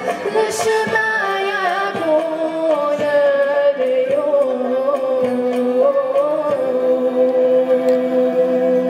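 A solo female voice sings a long, ornamented melodic line, accompanied by an ensemble of ouds, mandolins and violins with soft plucked strokes about once a second. Over the last couple of seconds the voice holds one long steady note.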